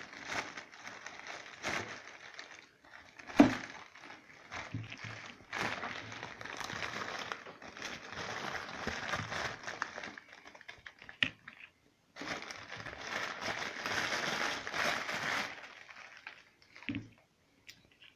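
Plastic crinkling and rustling from hands handling small plastic parts and packaging, in long stretches with short pauses, and a single sharp click about three and a half seconds in.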